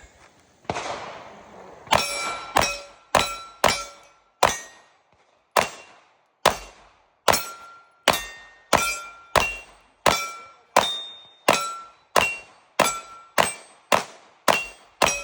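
Ported Atlas Hyperion 2011-style pistol being fired in a steady string of about twenty shots, a little under a second apart, each shot followed by a short metallic ring.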